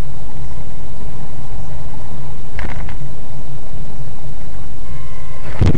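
Car engine and road noise heard from inside the cabin through a dashcam microphone, a steady loud low hum. Right at the end a sudden loud crash begins as the car collides.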